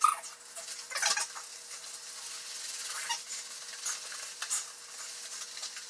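Hands scrubbing shampoo lather through a soaked Shetland Sheepdog's coat: wet squishing and rubbing, with a few louder swishes about a second apart.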